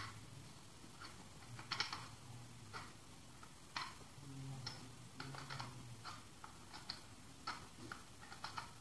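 Scattered, irregular plastic clicks and taps from a plug being pulled out of and pushed into the sockets of a plastic extension board.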